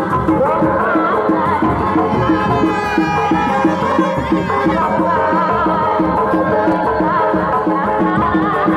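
Traditional Sundanese kuda lumping / reak music: drums beat a quick, steady rhythm under a wavering melodic line.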